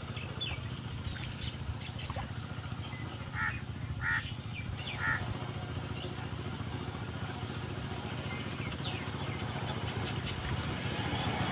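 A crow cawing three times, about a second apart, over a steady low rumble, with faint chirps of small birds.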